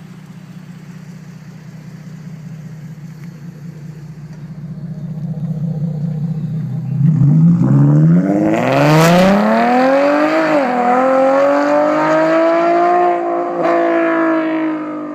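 Nissan 370Z's 3.7-litre V6 through test pipes (cat delete) and an AAM short tail exhaust, idling steadily and then pulling away hard. The revs climb, drop sharply at a gear shift about ten seconds in, and climb again. The sound fades near the end as the car drives off.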